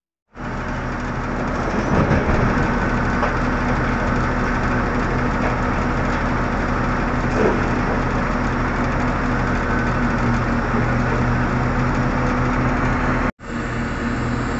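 Heavy diesel engines of a large mining excavator and a Caterpillar 777D haul truck running steadily with a deep engine hum, starting just after the beginning and cutting out for an instant near the end.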